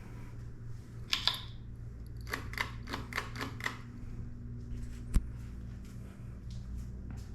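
Hampton Bay Ellijay ceiling fan running with a steady low motor hum. Light clicks come over it: a few about a second in, a quick run of about six between two and four seconds, and one sharp click about five seconds in.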